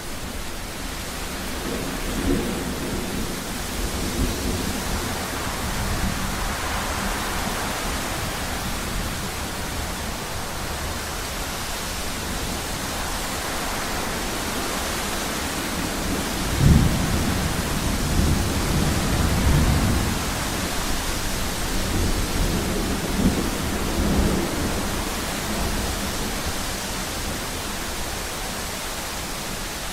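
Thunderstorm: steady rain hiss with rolling thunder rumbling underneath, swelling to a loud crack about 17 seconds in and rumbling on for several seconds after.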